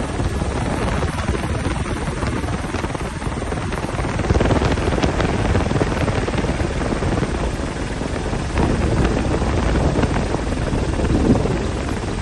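Helicopter running steadily, its rotor and engine heard from on board.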